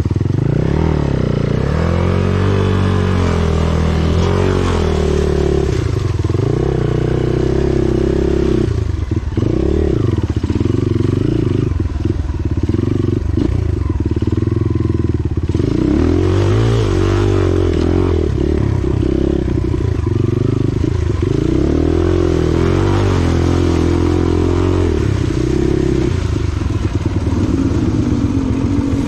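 Dirt bike engine revving up and down, its pitch rising and falling constantly as the throttle is worked.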